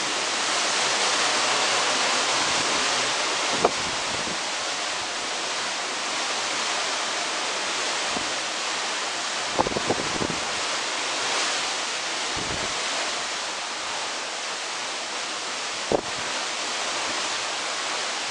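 Steady rush of wind and sea from a cruise ship's balcony, with a few short thumps of wind hitting the microphone.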